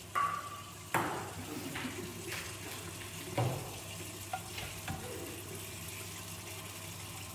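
Dishes being washed by hand in a plastic washing-up bowl: water sloshing as pans and plates are handled and scrubbed, with several knocks of dishes and pans against each other. The first knock rings briefly, like metal.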